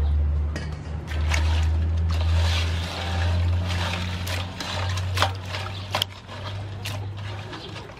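Water sloshing and trickling as cut blue crab pieces are swished and rinsed by hand in a metal basin, with several sharp clicks of shell against shell and basin in the second half. A low steady rumble runs underneath.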